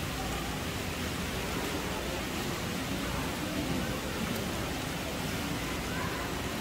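Steady rushing background noise with a faint, indistinct murmur of voices.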